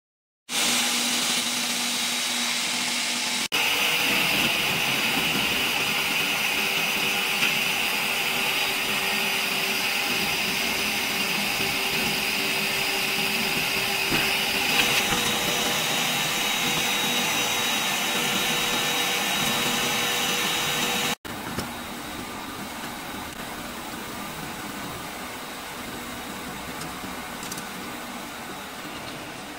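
Extrusion blow molding machine running: a steady mechanical hum and whine with several held tones. The sound changes abruptly about 3 s in and again about 21 s in, quieter for the last part.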